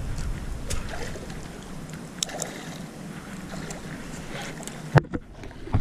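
Wind rumbling on the microphone and handling noise from a baitcasting rod and reel as a hooked bass is brought in to the bank, with scattered sharp clicks. A loud sharp knock comes near the end, after which the sound goes almost quiet for a moment.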